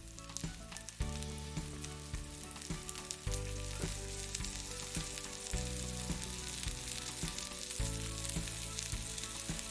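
Bell peppers sizzling and crackling in olive oil in an iron frying pan, with background music chords changing every second or two underneath.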